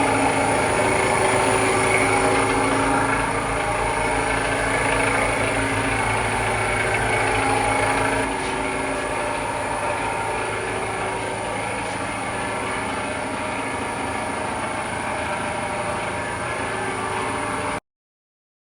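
A motor-driven machine running steadily, with a hum and a hiss; it gets a little quieter about eight seconds in and cuts off abruptly near the end.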